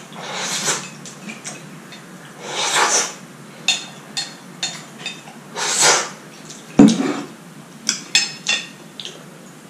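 Three long slurps as the last noodles are sucked straight from the tilted plate, with chopsticks clicking against the ceramic between them. About seven seconds in the plate is set down on the table with a knock, followed by a few sharp clinks of chopsticks on the plate.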